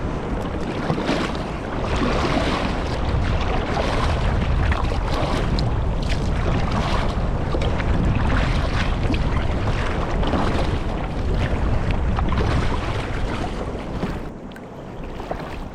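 Wind buffeting the microphone over water sloshing against a kayak, with scattered small splashes and knocks; it eases briefly about fourteen seconds in.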